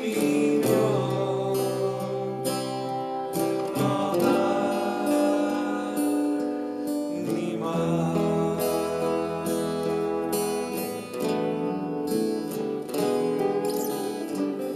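A man sings a Korean ballad, accompanying himself on a Crafter acoustic guitar with picked notes and chords.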